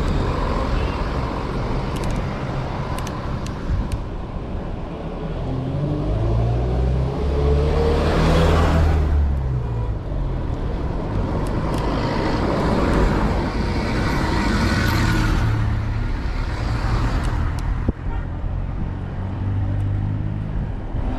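Road traffic: motor vehicles going by, one with its engine note rising as it passes about eight seconds in, and another a few seconds later, over a steady low rumble.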